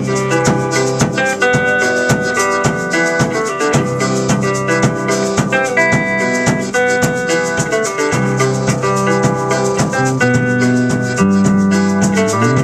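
Live folk band playing an instrumental passage: strummed acoustic guitar, with accordion and cello holding notes, over a quick, even percussion beat like a shaker.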